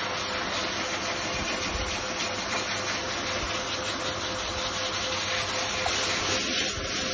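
High-velocity dog grooming dryer running steadily, a rush of blowing air with a steady motor whine, blowing through a Bernese mountain dog's wet coat.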